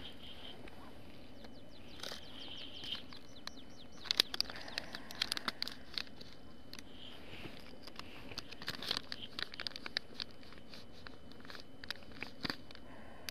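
Plastic zip packet of soft-plastic fishing lures crinkling and crackling as it is handled and opened. The crackles come in clusters, a few seconds in, again a few seconds later, and briefly near the end.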